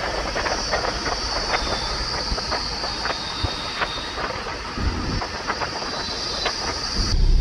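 Moving car's road noise: a steady high hiss over low rumble, with many irregular clicks and rattles. The hiss cuts off abruptly near the end.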